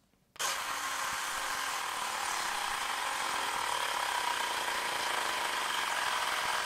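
Xiaomi Mi portable battery-powered air compressor switching on about half a second in and running steadily as it pumps up a bicycle tyre.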